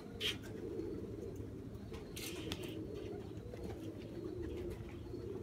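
Domestic pigeons cooing continuously, with a couple of brief higher sounds near the start and about two seconds in.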